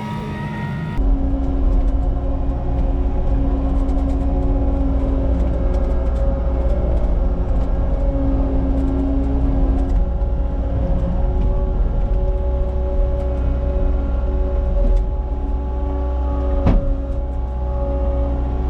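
Cat 279 compact track loader's diesel engine running steadily with a deep rumble, starting about a second in, with one sharp knock near the end.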